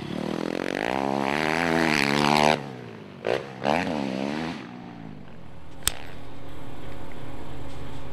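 Motorcycle engine revving, climbing in pitch for about two and a half seconds before cutting off, then two short throttle blips. A sharp click follows, then a steady low hum.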